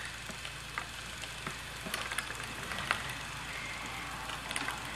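Spinolution Monarch spinning wheel running while plying yarn: a soft, steady whirr from the spinning flyer and bobbin, with a few faint clicks.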